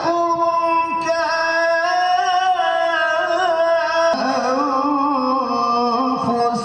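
A man's voice chanting Arabic melodically through the stage microphone and speakers, holding long notes that waver in ornaments, with a fresh phrase starting about four seconds in.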